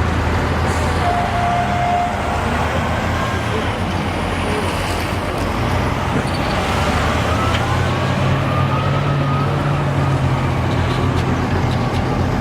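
Steady road traffic noise with vehicle engines running, and a short steady beep about a second in.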